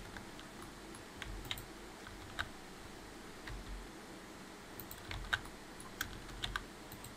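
Scattered, irregular clicks of a computer keyboard and mouse being worked, over faint room noise, with a small cluster of clicks past the middle.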